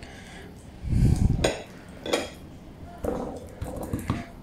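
A metal fork clinking and scraping against a plate while mashed avocado is spread on a flatbread, with a dull thump about a second in and several short clinks after it.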